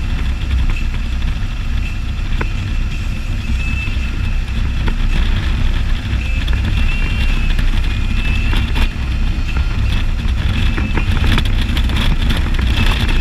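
Can-Am Spyder three-wheeled motorcycle under way, its engine running steadily under road noise, with a few sharp knocks as it rolls over a patched, bumpy road surface.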